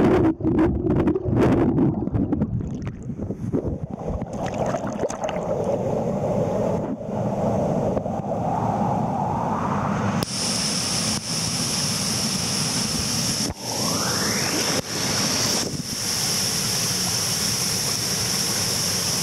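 Waterfall rushing in a steady roar of water, with wind buffeting the microphone during the first several seconds.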